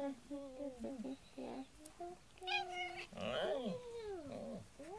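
Domestic cat meowing several times while being stroked: short calls that rise and fall in pitch, the loudest about two and a half seconds in, then drawn-out falling meows and a short rising-falling call near the end.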